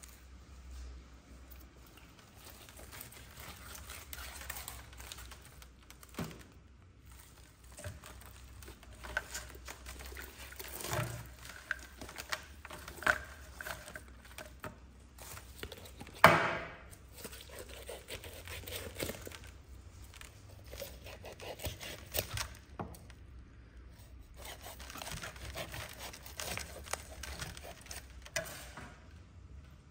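Crisp roasted skin crackling and meat tearing as a whole roast lamb is pulled apart by hand, in irregular short bursts, with one sharp, much louder crack about halfway through.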